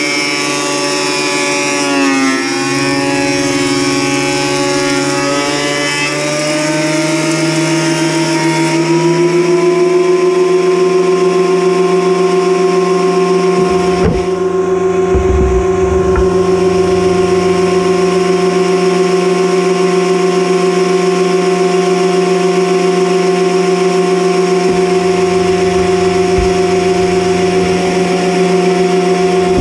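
Electric woodworking machine running with a steady motor whine. Its pitch wavers for the first several seconds, then settles and holds. A few dull knocks come in the middle and again near the end as boards are handled.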